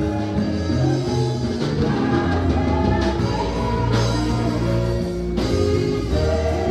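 Live church worship music: a band with a bass line and drums accompanying singers on microphones.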